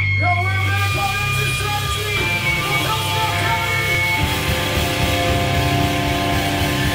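Live heavy rock band playing loud: distorted electric guitars holding sustained notes over a heavy bass and drums.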